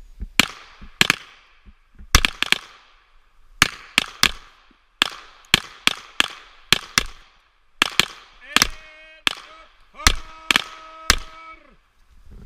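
A timed series of pistol shots, about twenty sharp reports in quick irregular succession, each with a short ringing echo. Near the end a steady pitched tone sounds twice.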